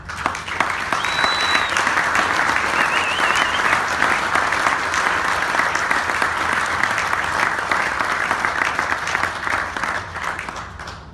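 Audience applauding, with a couple of whistles a second or two in; the clapping fades out near the end.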